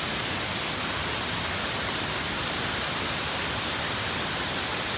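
Roaring of a tall mountainside waterfall heard close to its base: a steady, unbroken rush of falling water that sounds almost like a jet engine.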